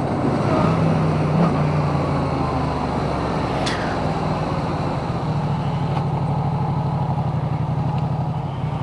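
Yamaha MT-07 parallel-twin engine running at a steady cruising speed, heard from inside a full-face helmet with wind and road noise. There is a single sharp click a little under four seconds in.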